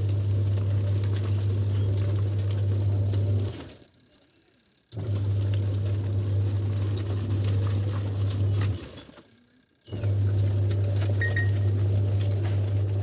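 LG 7 kg washing machine's wash motor humming as the pulsator churns water and clothes. It runs in stretches of about four seconds, stopping for about a second between them as the wash action reverses direction.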